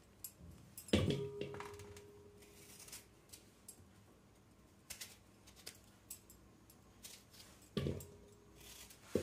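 Kitchen knife cutting through firm tomatoes with small clicks, and tomato quarters dropping into a stainless steel pot with a ringing clunk, loudest about a second in and again twice near the end.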